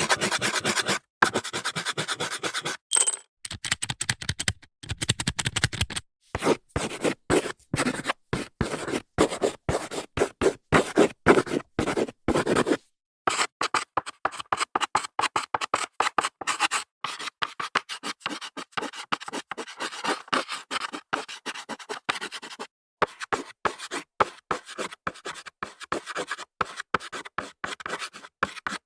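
Scratching and scraping on a blackboard in quick, short strokes, several a second, in a series of separate takes with brief silent breaks between them.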